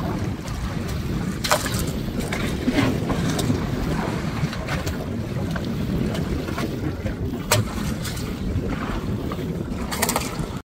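Wind buffeting the microphone on a boat at sea over a steady low rumble of water, with several short sharp slaps or knocks, the strongest about a second and a half in and again about seven and a half seconds in.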